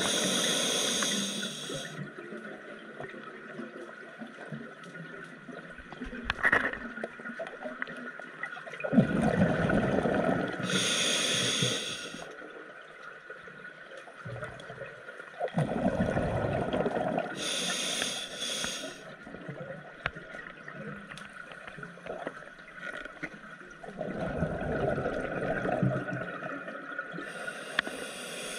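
Scuba diver breathing through a regulator underwater: a hissing inhalation about every seven seconds, four in all, each cycle with a burst of bubbling exhaust bubbles.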